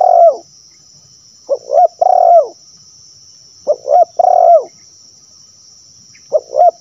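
Spotted dove (tekukur) cooing its 'sibero' call: a phrase of two short notes and a longer, rising-then-falling coo, repeated about every two seconds. This is a lure call meant to get other spotted doves calling.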